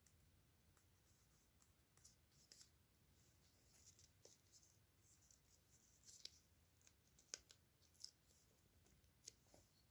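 Near silence, with faint scattered clicks and scratches as hands handle and fit parts onto a small toy, the loudest click about seven seconds in.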